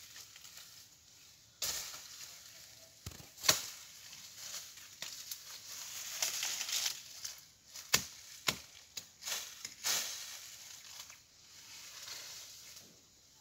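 Irregular sharp knocks and short scraping noises, spread unevenly over several seconds, with no chainsaw engine running.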